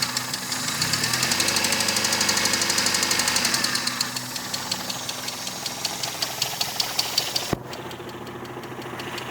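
Mazda 626 GE engine running with a rhythmic knock, which the owner puts down to the first cylinder and calls very low and untypical of this engine. The knocks come quickly over the first four seconds, then more slowly. The sound breaks off suddenly near the end and goes on quieter.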